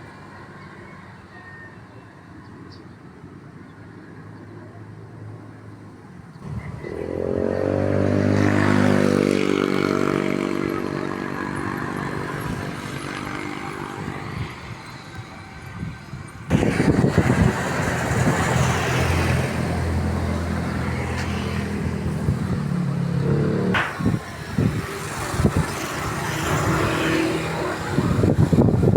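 A small engine comes up loudly about a third of the way in, its pitch rising and then holding steady. Near the middle the sound changes abruptly to engine noise mixed with a rough rushing noise, typical of wind on the microphone.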